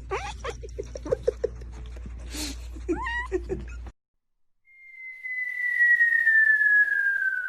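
A cat making short chirping calls, each rising then falling in pitch, with a run of quick pulses among them. About four seconds in, the sound cuts out and a long whistle tone slides slowly down in pitch, an added comic sound effect; it is the loudest thing here.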